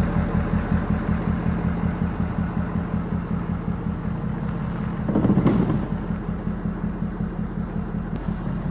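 Ford 6.7 Powerstroke turbo-diesel V8 running at idle with a steady, fast pulse. It swells louder briefly about five seconds in.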